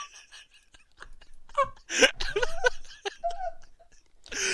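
Men laughing quietly, in short breathy, stifled bursts.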